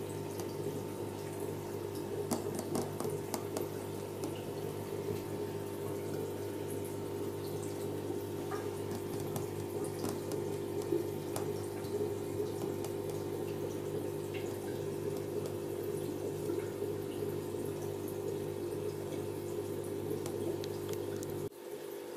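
Aquarium equipment humming steadily under the bubbling, trickling sound of water from an air stream in the tank. The deepest part of the hum drops out near the end.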